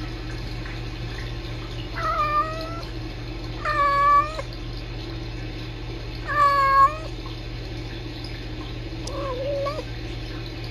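Kitten calling: four short chirping meows of about half a second each, the last one softer, over a steady background hum.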